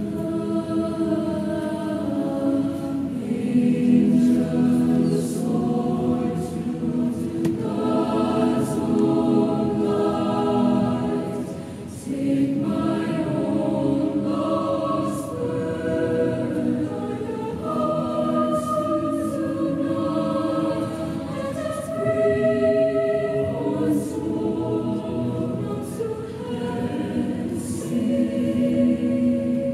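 Mixed-voice high school chamber choir singing a cappella in sustained, slowly shifting chords, with soft sibilant consonants; the sound eases briefly about twelve seconds in before swelling again.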